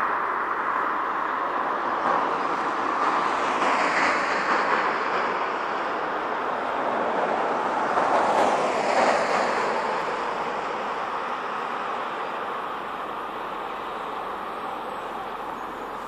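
Passing vehicles: a steady rushing noise that swells twice, about four and eight seconds in, then slowly fades.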